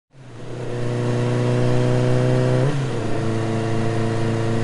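Motorcycle engine running at a steady speed, fading in at the start, with a brief dip in pitch a little over two and a half seconds in before it settles again.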